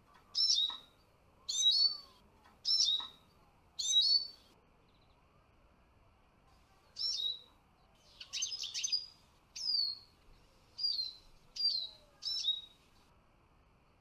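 Eurasian siskin calling: clear, high whistled calls, each dropping in pitch. Four come about a second apart, then after a short pause about five more, with a brief twittering burst among them.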